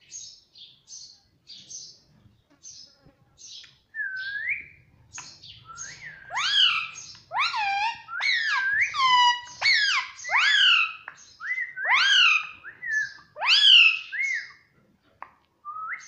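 Indian ringneck parakeet calling: soft, high chirps for the first few seconds, then a run of loud, clear calls, each rising then falling in pitch, about one or two a second.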